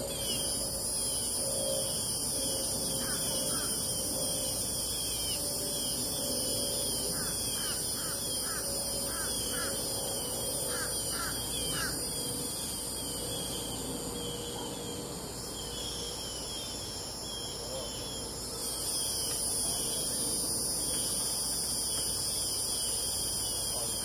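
Dusk chorus of crickets, a steady high-pitched trilling that eases off a little midway and swells again near the end, with birds calling over it in repeated short chirps and brief clustered calls.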